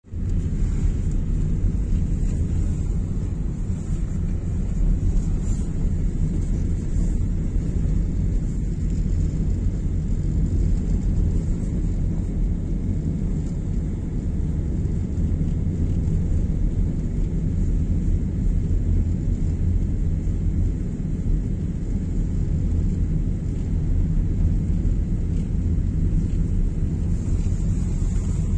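Steady low rumble of a car driving, heard from inside the cabin: engine and tyre noise at an even pace.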